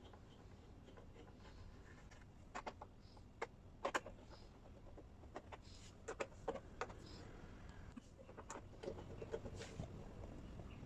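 Faint, irregular clicks and light taps as screws are taken out of a vanity mirror's plastic back cover with a screwdriver, with a louder pair of clicks about four seconds in.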